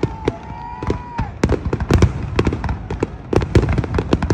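Aerial fireworks shells bursting in a rapid barrage: overlapping bangs and crackles, several a second, coming thicker from about halfway through.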